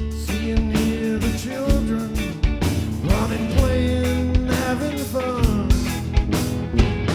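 Rock band playing: steady drum kit hits under guitar and bass, with a melodic lead line that slides in pitch.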